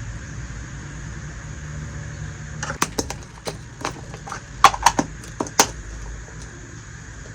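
A quick run of about a dozen light clicks and taps from small toy kitchen pieces being handled, starting a little under three seconds in and stopping before six seconds, over a steady low hum.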